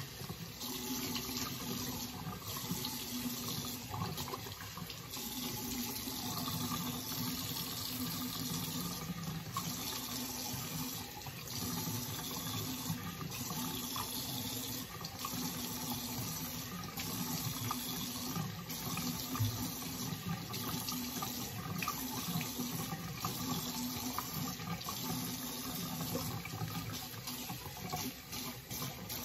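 Bathroom sink tap running while handfuls of water are splashed on the face to rinse off a charcoal mask: a steady flow broken by irregular splashes.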